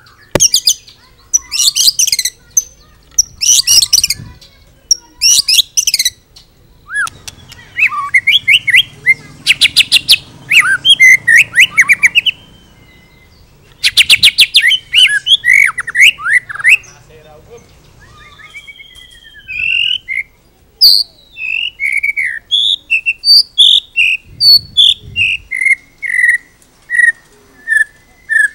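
White-rumped shama (murai batu) singing a varied song full of mimicked phrases: several loud, very rapid rattling trills in the first half, mixed with quick whistled notes, then a long run of clear whistles falling step by step in pitch near the end.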